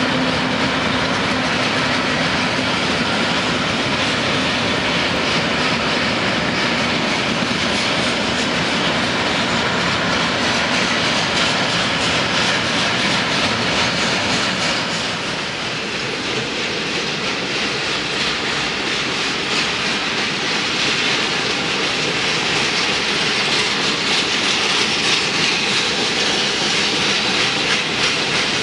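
Freight train of loaded flatcars passing close by, its steel wheels rolling steadily over the rails, with a slight dip in level about halfway through.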